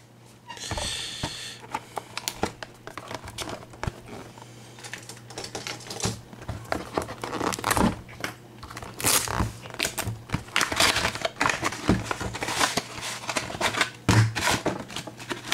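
A trading-card box being unwrapped and handled: plastic wrapping crinkling and tearing, with irregular clicks and taps from the box.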